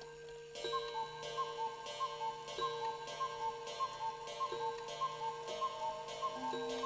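Steady tick-tock ticking, about three ticks a second alternating between two pitches, over held steady tones.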